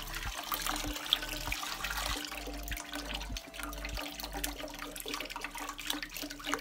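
Chicken broth poured from a carton into a large stainless steel stockpot: a steady splashing stream of liquid into the pot. A faint steady hum runs underneath.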